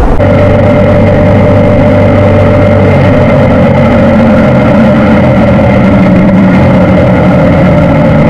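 BMW GS Adventure motorcycle's boxer-twin engine running at a steady pace while riding, with a change in the engine note about three seconds in.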